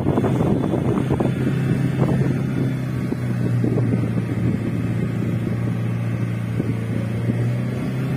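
Car engine humming steadily under load, with rumbling road and wind noise, heard from inside the moving car.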